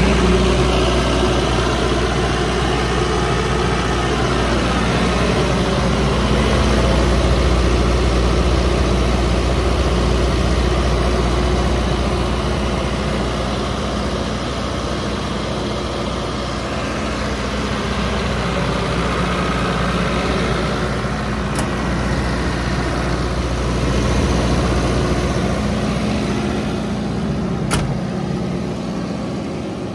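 Atlas Copco QAS 90 trailer-mounted diesel generator running steadily with an even low hum. A single sharp tap comes near the end, and the low hum drops off in the last few seconds.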